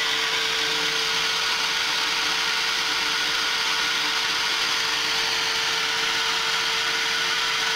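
Techno CNC Patriot router spindle running steadily as it mills a balsa CO2 dragster block: a steady whine over an even hiss.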